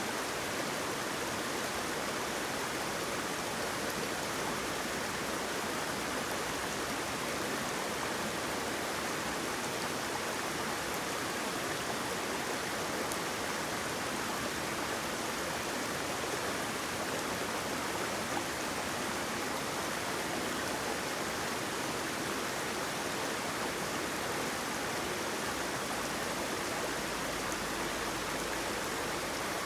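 Flowing water: a steady, even rush of a stream or small waterfall.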